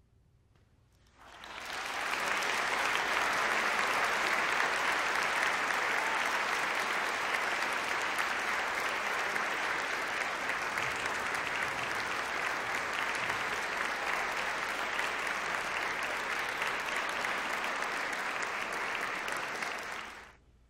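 Audience applauding, starting about a second in after a brief silence and cutting off quickly near the end.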